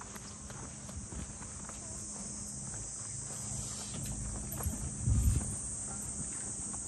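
Steady high-pitched buzzing of summer cicadas, with scattered footsteps and a low thump about five seconds in.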